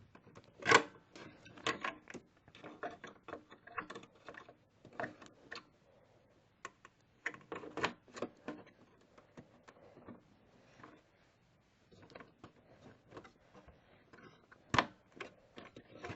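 Scattered plastic clicks and knocks as a RAM stick is handled and pressed into a desktop computer's memory slot, the white retaining clips locking it in. The loudest clicks come about a second in and near the end, with quieter stretches between.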